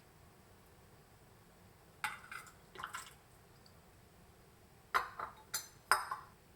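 Swing-top glass bottles and kitchenware clinking and knocking as the bottles are handled for filling: a few knocks about two seconds in, then four or five sharper clinks near the end.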